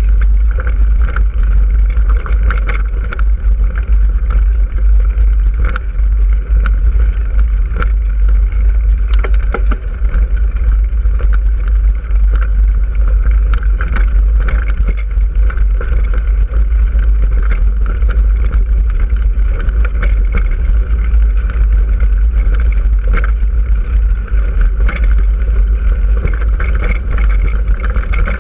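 Wind buffeting the microphone while riding along a gravel dirt track: a heavy, continuous rumble, with the tyres crunching and rattling over loose stones in many small clicks.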